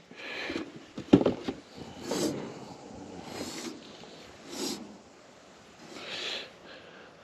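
Hand work on a bulldozer track part as a plunger is pushed into its seal: a sharp knock about a second in, then several short rasping noises roughly a second apart.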